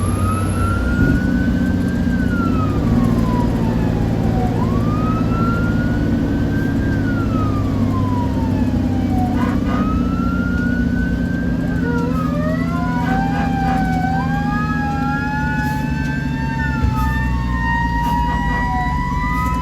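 Fire engine siren wailing in slow cycles, each rising for about two seconds and then falling, over the steady drone of the truck's engine. About two-thirds of the way through, a second siren tone joins and slowly winds upward alongside the wail.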